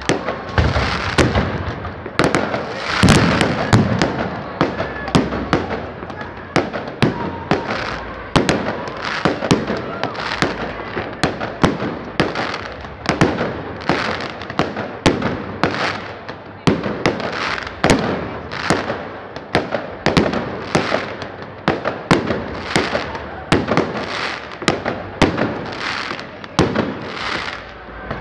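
Aerial firework shells bursting in a continuous barrage, a bang about every half second with crackle between them.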